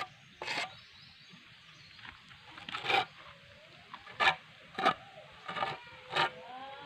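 Short scraping strokes of a hand file on a gate latch during finishing, about six strokes spaced irregularly.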